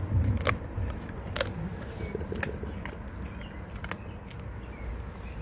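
Large dog chewing a whole raw fish, with several sharp crunches as its teeth bite through it.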